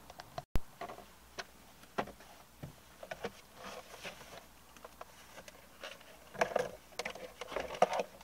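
Plastic glovebox of a Vauxhall Corsa D being handled and fitted back into the dashboard: scattered light plastic knocks, clicks and scrapes with some rustling, busier near the end. A single sharp click comes about half a second in.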